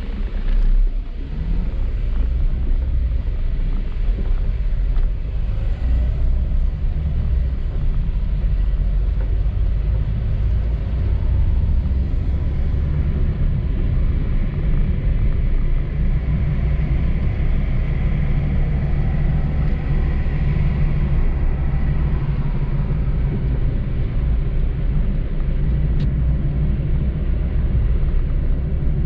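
Car driving on a wet road: a steady low rumble of engine and tyres with road hiss.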